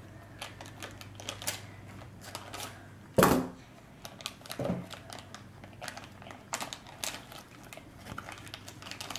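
Light clicking and rustling of a plastic blind bag and small K'Nex plastic pieces being handled, with a louder knock about three seconds in.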